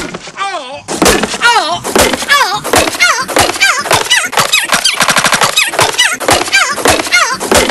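A short voice snippet chopped and looped over and over in YouTube Poop stutter style, its pitch swooping down and up on each repeat two or three times a second. About five seconds in it breaks into a rapid machine-gun stutter.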